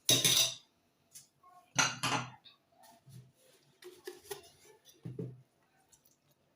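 A spoon clinking and scraping against a bowl while nitrosol powder is stirred into water. There are two louder scraping bursts, one at the start and one about two seconds in, then a few lighter taps.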